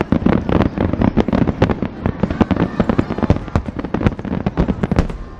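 Rapid barrage of aerial firework shells bursting, many booms and crackles overlapping in quick succession, easing off just before the end.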